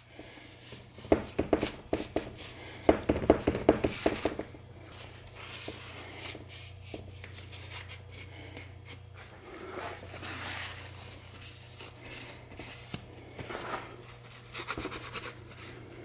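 Paper towel rubbing and wiping along the sealant seam of a T5 transmission's aluminium top cover, cleaning off wet squeezed-out sealant. Quick scrubbing strokes come about a second in and again from about three to four seconds, with softer rubbing and handling after.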